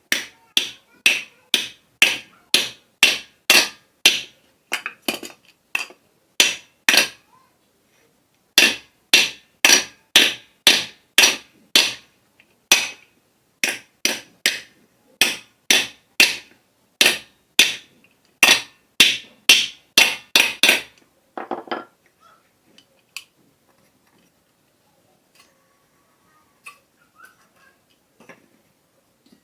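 Hammer striking metal in steady, evenly spaced blows, about two a second, each with a short metallic ring, with a brief pause about eight seconds in. The blows stop about 21 seconds in, followed by a short scrape and a few light clicks. This is typical of knocking a worn bearing off or a new one onto a ceiling fan's shaft.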